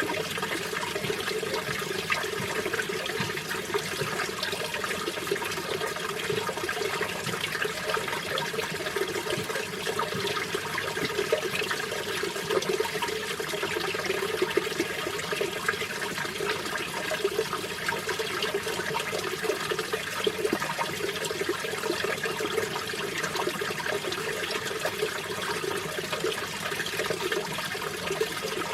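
Mountain valley stream running steadily over rocks, an even, unbroken sound of flowing and splashing water.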